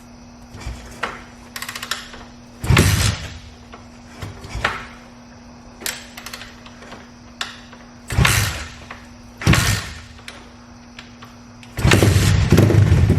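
Thumpstar 190 pit bike's single-cylinder four-stroke engine being cranked in a series of short attempts, each turning it over briefly without catching. Near the end it fires and keeps running.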